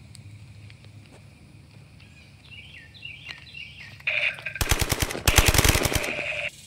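Rapid automatic-gunfire sound for toy guns, in two quick bursts that cut off suddenly near the end, preceded by a run of high repeated chirps.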